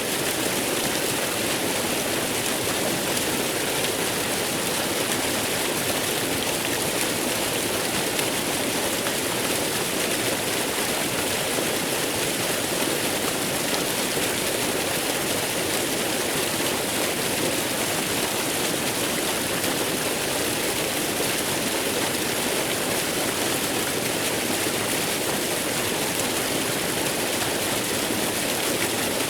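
Waterfall: water falling and rushing in a steady, unbroken wash of noise.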